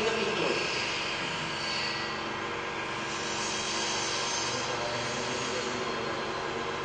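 Universal testing machine running steadily while it loads a rod specimen in tension, the test nearing peak load before necking and rupture.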